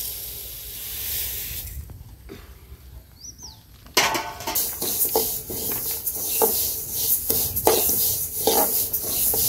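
Sesame seeds dry-roasting in a pan while being stirred: a hiss at first, then from about four seconds in a louder stretch of irregular crackling and scraping.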